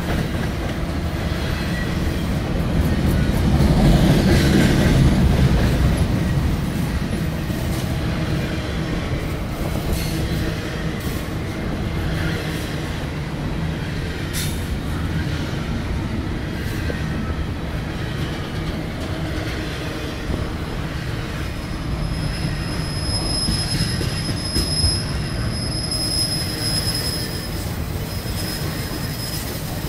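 Double-stack intermodal freight cars rolling past at close range, wheels rumbling with many short clicks over the rail. The sound swells louder a few seconds in, and a high steady wheel squeal sounds for several seconds in the second half.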